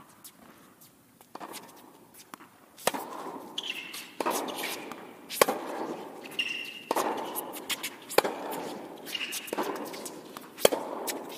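Tennis ball struck back and forth in a rally on an indoor hard court: about seven sharp racquet hits and bounces, roughly a second and a quarter apart, each echoing through the hall, with short high sneaker squeaks in between.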